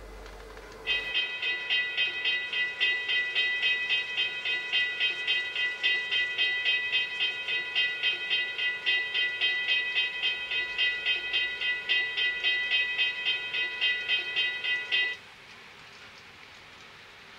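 Railroad grade-crossing warning bell ringing rapidly, about four strikes a second, signalling a train's approach. It starts about a second in and cuts off abruptly near the end, leaving a faint hiss.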